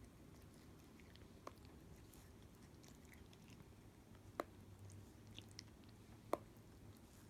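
A domestic cat grooming its paw, licking and nibbling at its toes: faint, scattered wet mouth clicks, with two sharper clicks about four and six seconds in, over a low steady hum.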